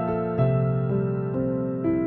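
Background music: a gentle keyboard melody moving slowly, a new note about every half second.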